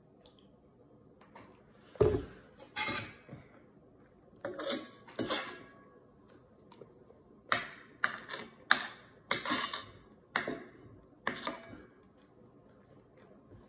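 Metal fork and spoon scraping and clinking against a dinner plate as rice is scooped up, in about a dozen short strokes. The first, about two seconds in, is a heavier knock.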